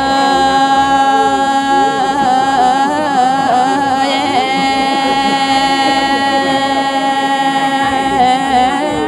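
A woman singing one long held note of traditional folk song, steady in pitch with a slight wavering about three seconds in; the note stops at the end.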